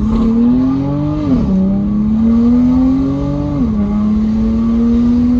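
BMW M3 F80's S55 twin-turbo inline-six with an equal-length exhaust, accelerating through the gears. The engine note climbs steadily and drops sharply twice with quick upshifts, about a second in and again near four seconds in, then climbs once more.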